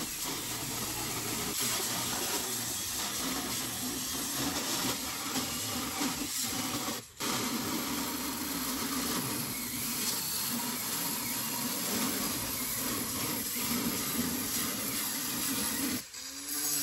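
Corded angle grinder with a cut-off wheel, run without a guard, cutting through the aluminum ramp's top rail: a steady grinding noise that cuts out for a moment about seven seconds in and again near the end.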